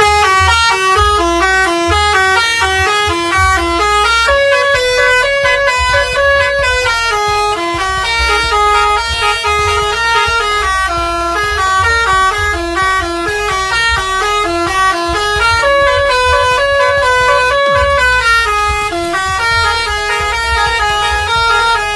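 Indonesian bus's Basuri multi-tone horn playing a quick melody, short notes stepping up and down one after another, over a low rumble.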